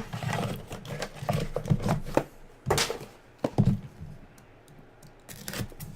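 A knife cutting open a cardboard box of sports cards, with scraping, crackling and knocks from handling the box. Two sharper strokes come near the middle, and only light ticks follow.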